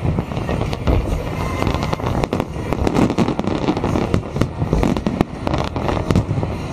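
Aerial firework shells bursting in a dense, continuous barrage: many sharp bangs and crackles a second over a steady low rumble.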